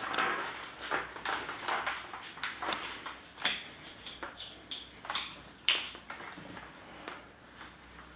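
Handling noise from a motorcycle helmet being turned over in the hands: irregular rustles, light knocks and scrapes of the shell and padding, with two sharper clicks in the middle, thinning out toward the end.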